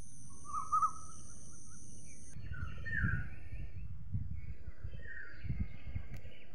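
Birds chirping in short repeated calls, with a steady high insect drone that cuts off suddenly about a third of the way in, over a low background rumble.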